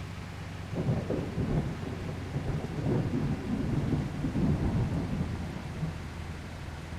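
Water truck running, a steady low engine drone, with a louder, irregular low rumbling laid over it from about a second in until near the end.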